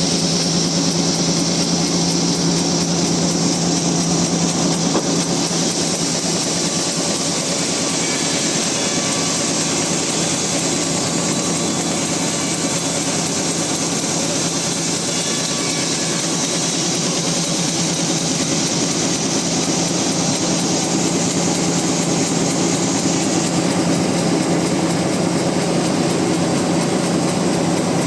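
Band sawmill running steadily as it saws a large rain tree (trembesi) log: a constant machine hum under a dense high-pitched blade noise, which eases a little near the end.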